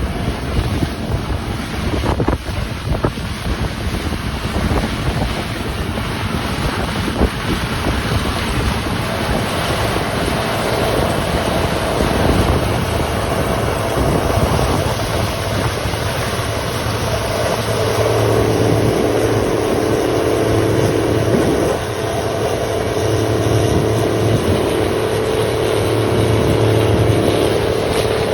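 Combine harvester running with a steady engine and machinery drone that grows louder about two-thirds of the way through, with wind buffeting the microphone.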